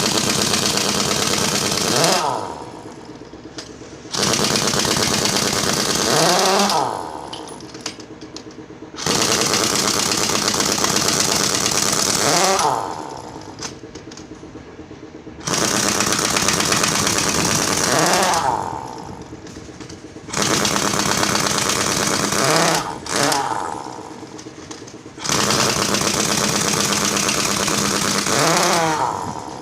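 Pneumatic impact wrench hammering in repeated bursts of two to four seconds, about six times, each burst ending with a sliding pitch as the tool winds down.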